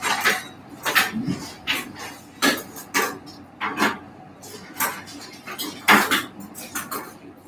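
Metal surgical instruments and clamps clinking against each other, a string of irregular sharp clicks and clinks.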